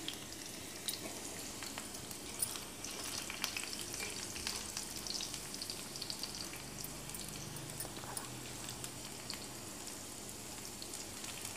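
Cumin seeds and garlic cloves sizzling in hot oil in an iron pan, stirred with a steel spoon, with a steady hiss and occasional small ticks. This is the tadka being fried until the garlic turns light brown.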